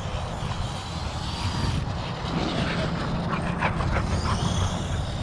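ARRMA Notorious RC monster truck's brushless motor whining, its pitch rising and falling as the throttle changes. There is a steady low rumble underneath, and a short spell of clattering in the middle.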